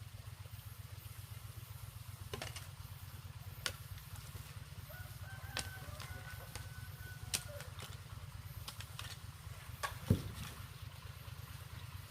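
A rooster crowing once, faint and long-drawn from about five seconds in, over a steady low hum. A few sharp knocks sound here and there, the loudest near the end.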